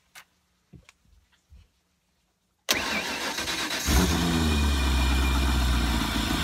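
A few faint knocks, then an inboard ski-boat engine is cranked by its starter for about a second, catches with a brief rise in revs, and settles into a steady idle.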